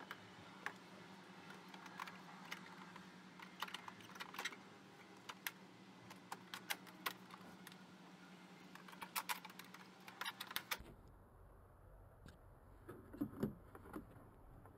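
Light plastic clicks and rattles of backup-camera wiring and liftgate trim pieces being handled, over a steady low hum. About eleven seconds in the sound turns duller and closer, with a few soft knocks as a hand works at the plastic trim panel.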